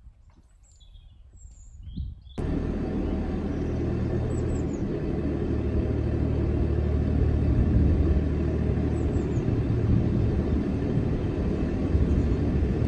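A few faint bird chirps over quiet, then a sudden cut about two seconds in to the workboat's engine chugging steadily and loudly while underway, with a bird calling faintly over it twice.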